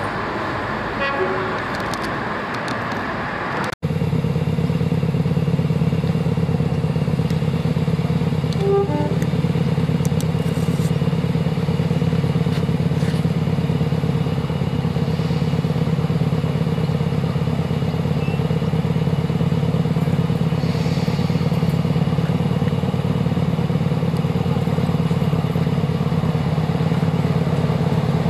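First-generation diesel multiple unit's underfloor diesel engines idling, a steady, even throb. It begins abruptly about four seconds in, after a rougher, quieter engine sound at the start.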